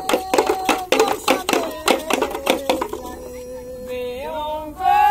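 Group chanting over rhythmic percussion: sharp knocks at about two to three a second under held sung notes. The knocks stop about three seconds in, leaving a voice holding one long note that slides upward near the end.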